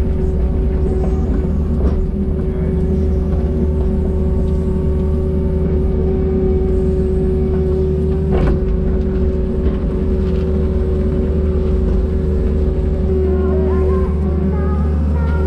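A diesel engine running at a steady speed, a constant heavy drone with one sharp knock about eight seconds in. Music comes in near the end.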